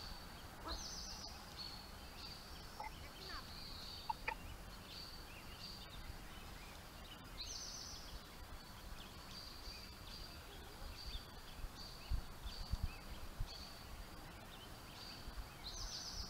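Songbirds singing, with short high chirps and trills throughout and one bird repeating the same quick sweeping phrase about every seven seconds. A few soft low bumps come a little past the middle.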